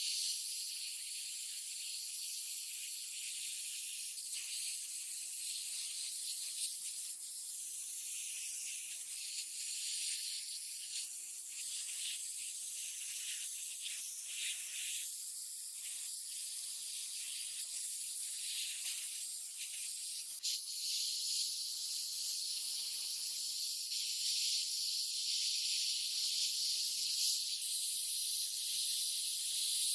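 Hand-held sandblaster gun hissing steadily as it blasts abrasive onto small rusty metal toy-car parts, stripping the rust and paint. The hiss grows louder about two-thirds of the way through.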